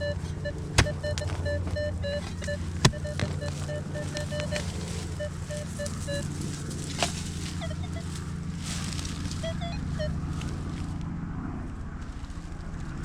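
Metal detector giving a broken, repeating beeping tone over a dug target, with a few sharp knocks. A steady low hum runs underneath.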